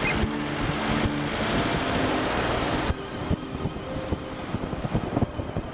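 Vehicle on the move, a steady mix of engine hum and road noise with a low engine note that shifts pitch once. About three seconds in it cuts off suddenly to a quieter outdoor hiss with a few knocks.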